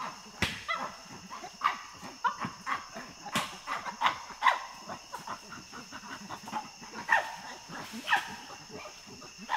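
Wild chimpanzee barks: short, sharp calls repeated irregularly, about ten of them, with a steady high whine underneath.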